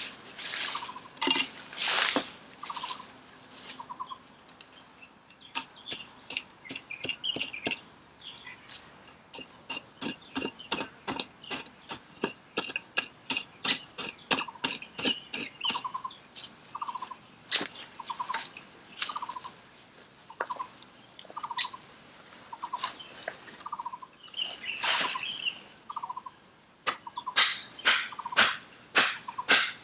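A bird repeating a short call about once a second, among irregular sharp clicks and knocks, with a faint steady high whine underneath.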